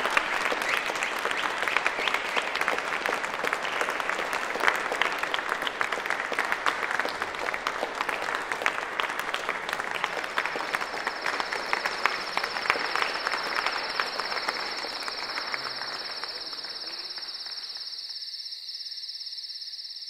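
Audience applauding with dense clapping, which thins and fades out near the end. About halfway in, a steady high trill of night insects comes in and is left alone once the clapping has gone.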